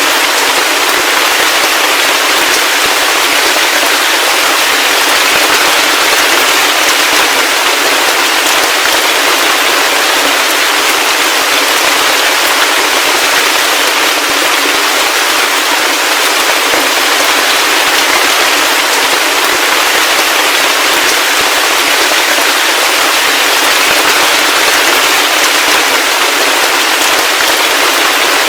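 Heavy rain falling steadily: a dense, even hiss of many fine crackling drop impacts, with no low rumble underneath.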